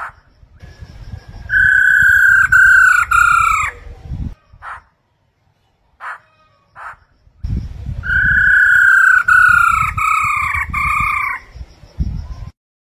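Black-throated laughingthrush singing: two loud phrases of three or four clear whistled notes, each note sliding downward, with a few short calls between the phrases.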